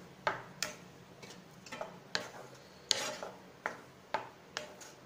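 Wooden spatula stirring thick semolina halwa in a coated pan: a run of irregular scrapes and knocks against the pan, about two a second, the sharpest about three seconds in.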